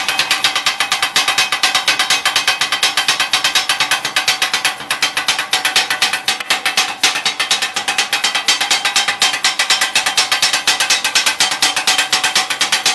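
Two flat steel scrapers rapidly chopping fried noodles and vegetables against a flat iron griddle: a fast, even metallic clatter of several strikes a second, with a faint ring.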